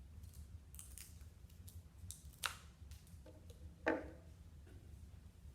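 Scissors cutting through a wooden popsicle stick: a few light snips, then two louder cracks about two and a half and four seconds in.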